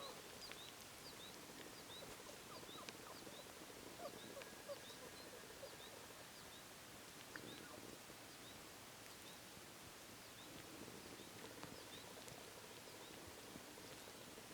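Quiet outdoor ambience with faint, short high chirps repeating steadily, about one every half-second to second.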